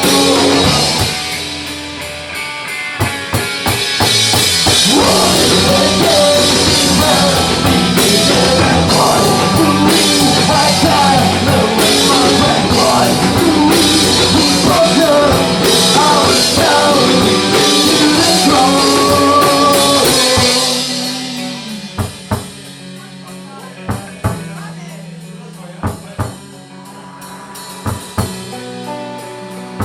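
Rock band playing an instrumental passage: full band with drum kit and a bending lead melody, dropping about two-thirds of the way through to a sparse, quieter section of single drum hits before the band comes back in near the end.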